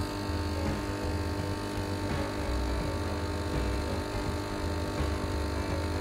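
Arissto Happy Maker 2.0 capsule coffee machine running its pump while it dispenses a thin stream into the cup: a steady buzzing hum with an uneven low pulsing underneath.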